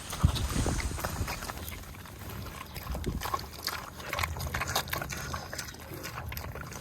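Pigs eating their feed, with irregular chomping and smacking, and one sharp knock just after the start.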